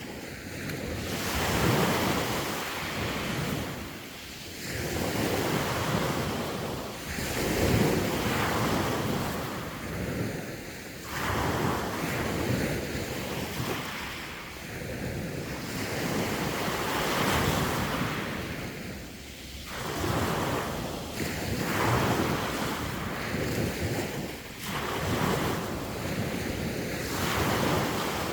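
Sea waves breaking and washing up the shore, the surf swelling and falling away every few seconds.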